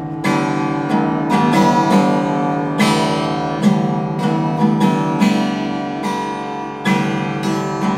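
Acoustic guitar strummed in a simple beginner's strumming pattern, the same notes ringing under each repeated stroke.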